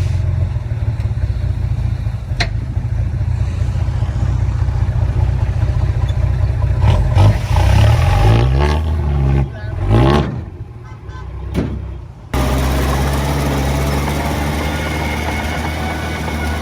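Diesel engine of heavy earthmoving equipment running under load with a steady low drone; about halfway through the engine note rises and falls as it revs, then it dips quieter and the full drone comes back abruptly.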